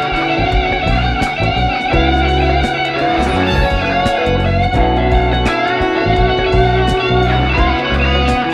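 Electric guitars playing improvised lead lines over a slow 1970s-style funk backing track with a steady beat. The guitars are a sunburst Stratocaster-style guitar and a Les Paul-style guitar.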